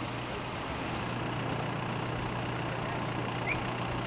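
Minibus engine idling steadily with its door open, a low even hum, with one brief rising chirp near the end.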